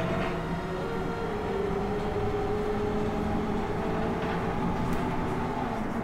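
Inside a Škoda 15Tr10/7 trolleybus while it drives: the electric traction drive whines at a steady, slowly drifting pitch over continuous road and tyre rumble, with a few light rattles near the end.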